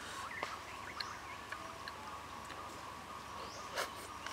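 Quiet outdoor background with a steady high hum and faint bird chirps, plus a few light clicks of a metal spoon against a metal pan.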